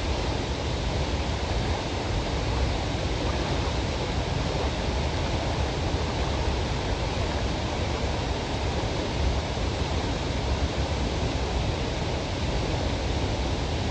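A waterfall's steady rushing noise, even and unbroken.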